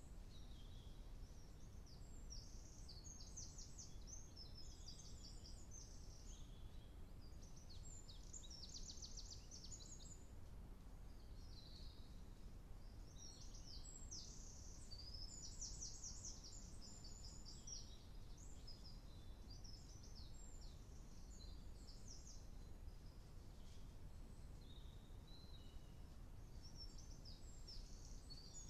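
Faint songbirds singing: short, rapid, high trilled phrases every few seconds, with pauses around 11 s and again in the low 20s, over a low steady rumble.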